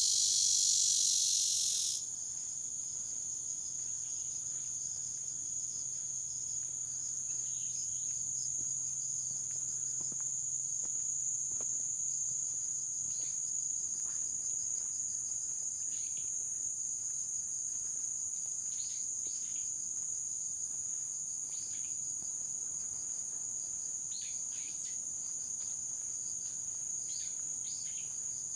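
A steady, high-pitched insect chorus droning without a break. A louder, wider buzz cuts off suddenly about two seconds in, and short high chirps come and go throughout, more of them near the end.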